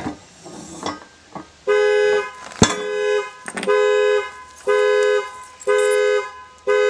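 Car alarm honking the horn, a two-note blast about half a second long repeating about once a second, set off by the key in a pocket. Some handling noise comes before it starts, and a sharp click falls between the first two blasts.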